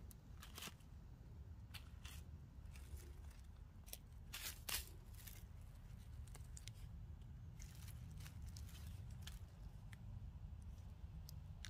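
Dry leaf litter and pine needles crackling and rustling as a hand rummages through them and pulls black trumpet mushrooms from the forest floor. The snaps come at irregular intervals, the loudest a little before the middle, over a low steady rumble.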